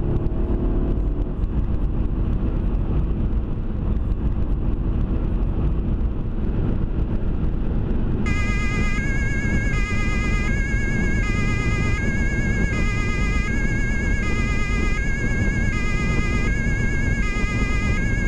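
Steady road and engine noise inside a car at Autobahn speed. About eight seconds in, a German police two-tone siren switches on abruptly and alternates between its two pitches, one cycle about every second and a half.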